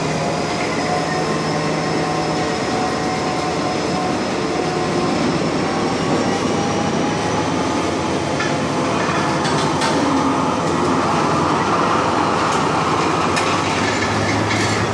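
Loaded container freight wagons rolling past: a steady rumble of steel wheels on rail, with thin high squealing tones that slowly rise in pitch and a few sharp clicks in the second half.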